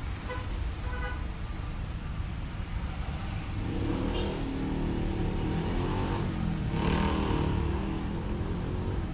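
A motor vehicle's engine over a steady low rumble, growing louder from about three and a half seconds in and loudest about seven seconds in.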